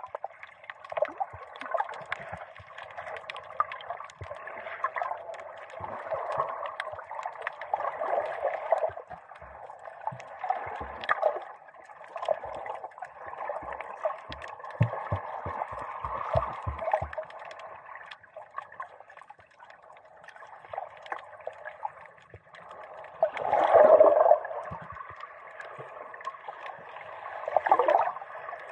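Sea water sloshing and gurgling around a camera's dive housing just below the surface, heard muffled, with scattered low knocks midway and two louder surges near the end.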